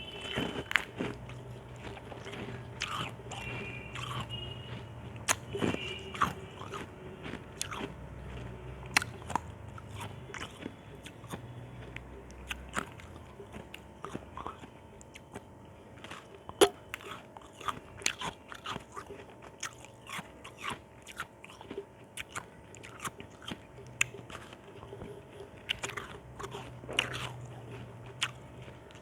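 Chunks of ice being bitten and chewed, with crisp, irregular crunches and cracks several times a second; one crack about two-thirds of the way through is the loudest.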